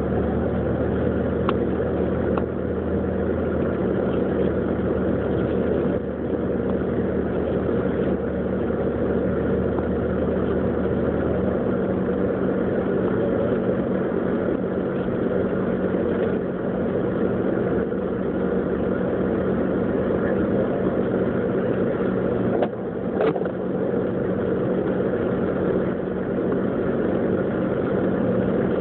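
Steady engine and road noise heard inside the cabin of a Jeep Grand Cherokee driving through snow. A low hum drops out about a third of the way in, and there are a couple of brief knocks near the end.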